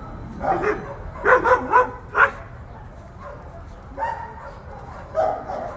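Dogs barking and yipping during rough play: a quick run of short barks in the first two seconds or so, a longer drawn-out call about four seconds in and another bark near the end.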